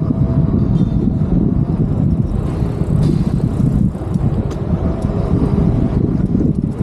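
Street traffic noise mixed with low, gusty wind rumble on the microphone.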